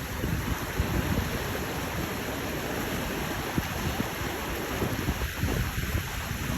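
Steady rush of running water, with wind buffeting the microphone in low, uneven rumbles.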